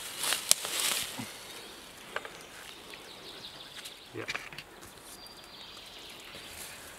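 Rustling and a sharp click as a camera trap's strap is fastened and handled around a tree trunk, then a quieter stretch of woodland ambience with a few faint ticks.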